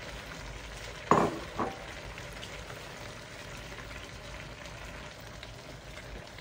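Chicken and vegetables frying in a wok with a steady sizzle, and two short strokes of a wooden spatula stirring against the pan about a second in.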